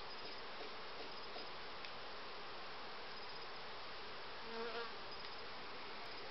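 Carpathian honeybees buzzing around an open hive, a steady hum with no break. About four and a half seconds in, the buzzing briefly grows louder.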